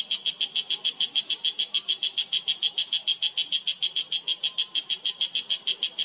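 Cicada calling: a steady run of short, high-pitched pulses, about eight a second.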